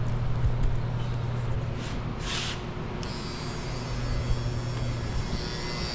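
A 36-volt battery charger's transformer humming steadily as it charges, with a short hiss about two seconds in and a high whine joining near the end.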